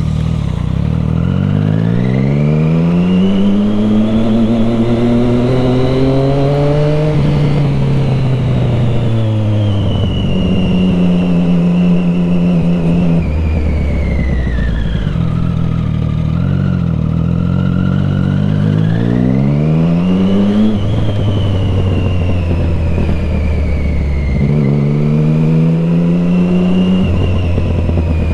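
Triumph Street Triple 675R's inline three-cylinder engine under way, the revs rising through the gears three times, once about a second in, again near the middle and again near the end, with steadier running and easing off between.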